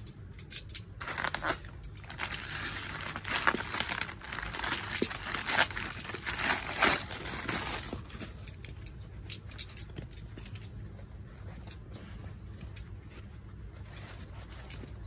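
Plastic packaging bag crinkling and rustling as it is handled and opened, loudest through the first half; then softer rustling with occasional light clicks as the folded spunbond non-woven green-screen cloth is handled and unfolded.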